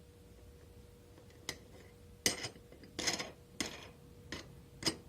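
Metal mold frame being tightened down: a few irregular light metallic clicks and knocks as the bolts are turned, over a faint steady hum.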